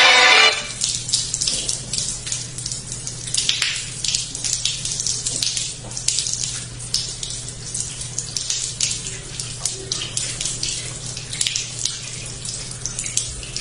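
Music cuts off about half a second in, giving way to running water with many small irregular splashes and a steady low hum underneath.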